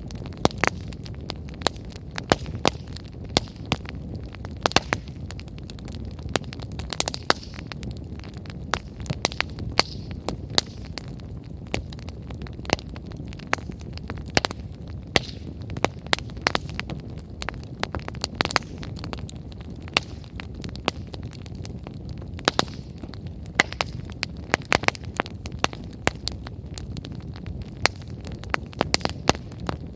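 Burning firewood crackling, with frequent sharp pops and snaps at irregular moments over a steady low rumble of the fire.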